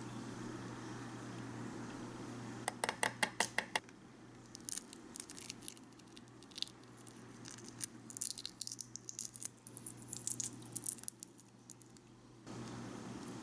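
Shell of a hard-boiled quail egg cracking against a ceramic bowl, a quick run of sharp clicks about three seconds in. After that come scattered small crackles and snaps as fingers peel the crazed shell away.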